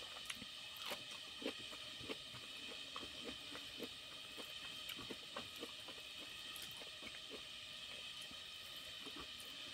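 Fingers mixing and squeezing rice with curry on a steel plate make faint soft squishes and small clicks against the metal, scattered irregularly. A steady high-pitched background hiss sits beneath them.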